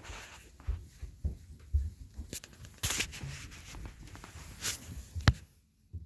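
Irregular rustling and scattered clicks and knocks, with one sharp knock about five seconds in, after which it goes quiet.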